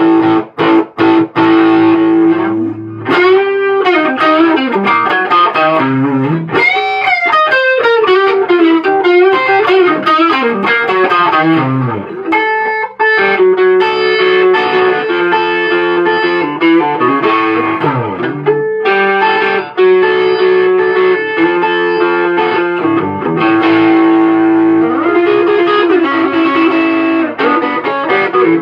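Electric guitar, a 1954 Gibson Les Paul Goldtop with P90 pickups, played through an overdriven amp: a blues lead with sustained notes, string bends and quick runs.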